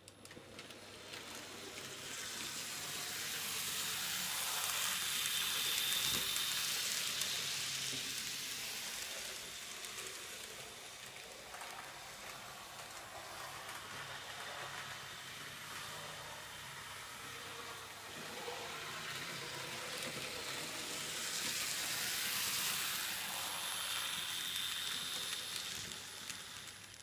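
Model 4-6-2 Pacific locomotive and three coaches running along model railway track, the wheels and motor making a steady hissing rumble with a faint high whine. It swells twice as the train passes close, about six seconds in and again near the end.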